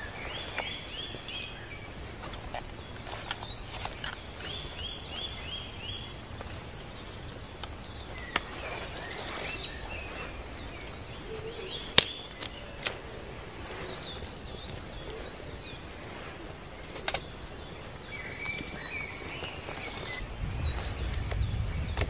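Songbirds calling and singing in short repeated phrases over a steady outdoor background, with a few sharp pops from a wood fire crackling in a small folding metal camp stove, the loudest about halfway through. A low rumble comes in near the end.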